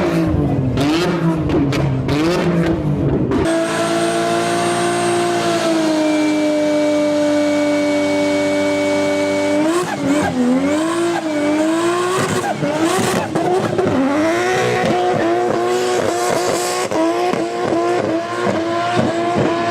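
Nissan Skyline GT-R R34's twin-turbo straight-six revving up and down, with rapid sharp bangs and crackles typical of an anti-lag system. About three and a half seconds in, the sound cuts to a long steady high note with tyre squeal, as in a burnout, which breaks off near ten seconds in. The engine then goes back to revving up and down with more pops.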